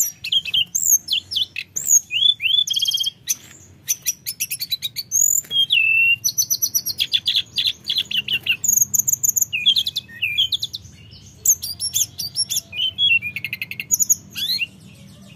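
Male hill blue flycatcher (tledekan gunung) singing a fast, varied song of high whistles and rapid trills, in phrases broken by short pauses.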